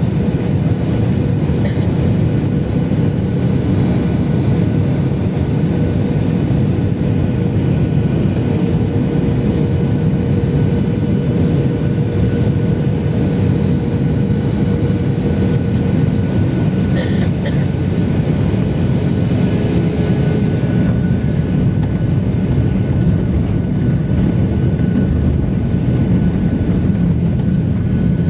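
Jet engines and rushing air of a Boeing 737 heard from inside the passenger cabin on the landing approach, a steady loud noise. A faint steady hum runs under it and fades about halfway through, and there are a few brief clicks.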